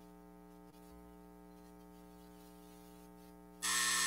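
Steady electrical mains hum. About three and a half seconds in, a loud, harsh electronic buzz cuts in suddenly and keeps going.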